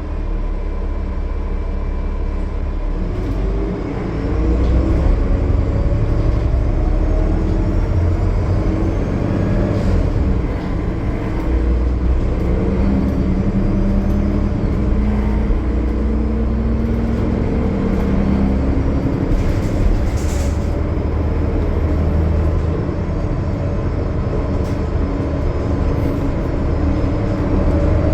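Cummins ISL9 inline-six diesel in a Gillig Low Floor transit bus running steadily under load. It gets louder about four seconds in, and a whine climbs in pitch over the next several seconds.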